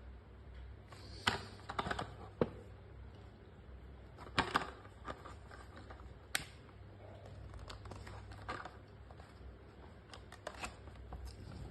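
Irregular clicks and crinkles of toy-car blister packaging, plastic and card, being handled and torn open.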